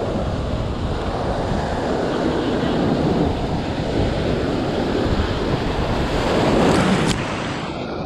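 Breaking ocean surf rushing around a kayak, with wind buffeting the microphone. The rush of water builds to its loudest about seven seconds in as the whitewater reaches the kayak, then eases off.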